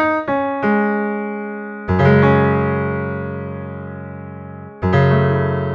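Electric-piano-style keyboard tones in an alternative tuning: the last notes of a quick run of single notes stepping through a cycle of fifths in a 26-note equal tuning, then a sustained chord about two seconds in that slowly fades, and a second chord near the end.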